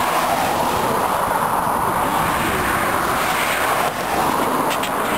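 Steady motor-vehicle drone as a race-convoy team car with bicycles on its roof passes along the road.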